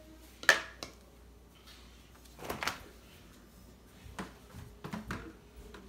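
Household handling knocks: a sharp plastic click about half a second in, a louder knock and rustle about two and a half seconds in, then a few light knocks, as a plastic water bottle and its lid are handled and a refrigerator door is opened.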